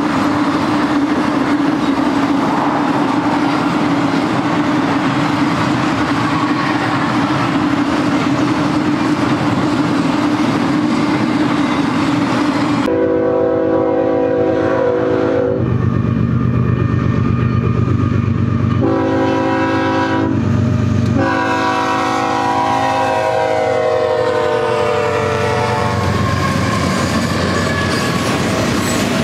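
Freight train cars rolling past with a steady rumble and wheel clatter. About halfway through, a GE diesel locomotive's air horn sounds a series of blasts, the last one long and falling in pitch as the locomotive passes. Double-stack container cars then rumble by.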